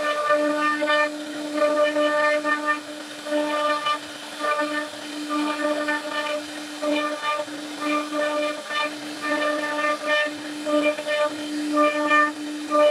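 CNC router spindle running with a steady whine while its cutter carves a wooden panel; higher cutting tones come and go every half second or so as the bit moves through the wood.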